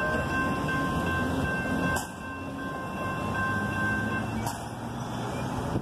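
Expo Line light rail train running through a street grade crossing: a steady low motor hum with a high, steady whine over it that fades out about four seconds in.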